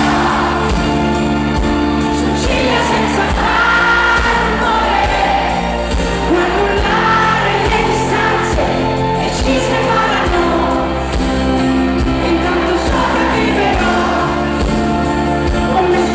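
Italian pop song with a woman singing over a band, the drums keeping a steady beat.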